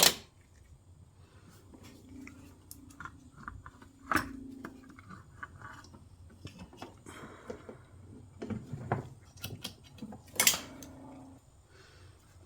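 Metal clinks and knocks of engine parts and hand tools being handled during a carburetor removal: a few sharp knocks, the loudest about ten seconds in, between lighter scattered clicks.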